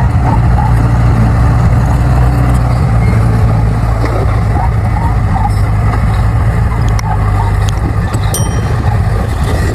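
Bulldozer's diesel engine running steadily with a strong low hum while pushing soil, with a few sharp metallic clicks near the end.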